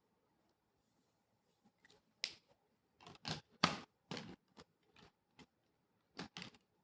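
Quick scratchy strokes of a drawing tool on paper, a run of them about two seconds in and two more near the end.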